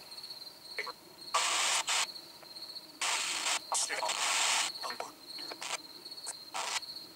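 Handheld spirit box (ghost box) sweeping through radio frequencies: short bursts of static hiss chopped off abruptly, with brief fragments in between, taken by the ghost hunters as an answer. A cricket trills steadily underneath.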